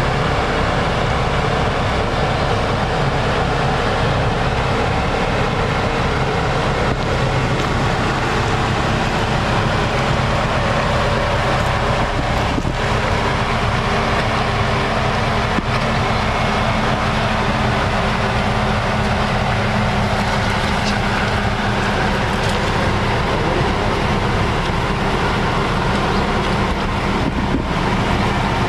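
2021 Jeep Grand Cherokee Trailhawk driving on an off-road trail: a steady blend of engine and tyre noise.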